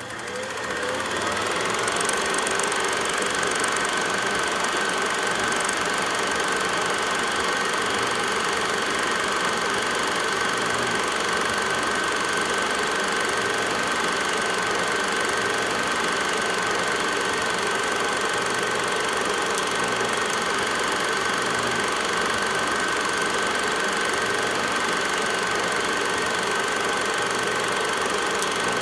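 Film projector running: a steady mechanical clatter with a constant whine, fading in over the first second.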